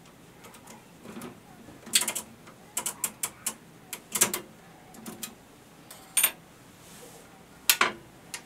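Sharp metal clicks and clacks from the workings of an antique National Cash Register Model 39, handled by hand under its raised top lid. There are about a dozen irregular clicks, the loudest around two, four, six and nearly eight seconds in, some with a short bright metallic ring.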